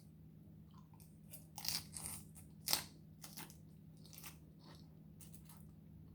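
A person biting and chewing crisp food close to the microphone: a string of short, sharp crunches, the loudest a little under three seconds in.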